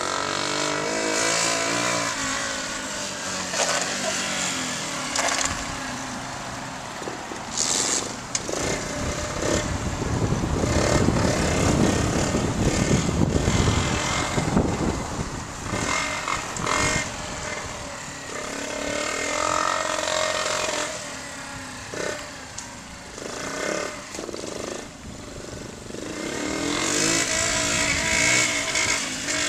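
Lifan 70cc single-cylinder four-stroke dirt bike engine running as the bike is ridden past, its pitch rising and falling as it revs up and eases off several times. It is loudest around the middle.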